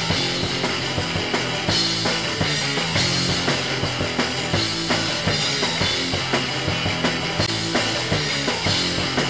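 Outro music over the end credits: a rock-style track with a drum kit keeping a steady beat.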